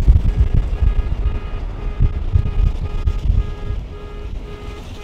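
Wind buffeting the microphone in low rumbling gusts that ease after about three and a half seconds, over a steady run of short electronic beeps, about three a second, from a vehicle's warning chime.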